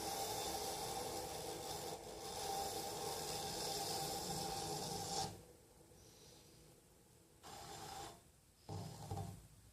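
Fingernail being ground against a coasting bench grinder wheel: a steady rasping for about five seconds that stops suddenly, followed by two short, fainter scrapes.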